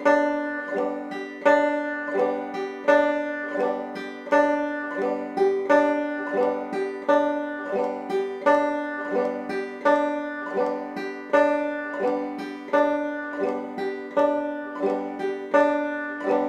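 Five-string banjo played clawhammer style: a steady frailing strum (bum-ditty) on open strings, starting on the first string, at a medium practice tempo with an even, regular pulse.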